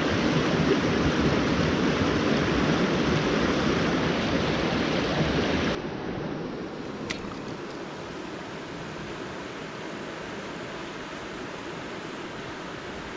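Creek water rushing over rocks in a fast riffle, steady and fairly loud, then dropping suddenly about six seconds in to a quieter, steady flow. A single brief click about seven seconds in.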